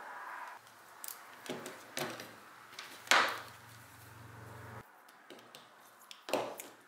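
Coiled plastic-sheathed cables and their plugs being handled and laid on a desk mat: a handful of light knocks and rustles, the loudest about three seconds in and another near the end.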